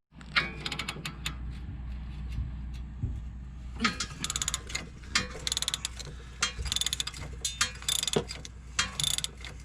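Hand ratchet wrench clicking in several quick runs as a bolt is turned by hand, with a few sharper metal knocks in between.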